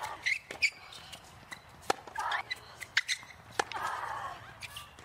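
Tennis rally on a hard court: sharp racket-on-ball strikes and ball bounces, with a player's short grunt on her shots about two and four seconds in.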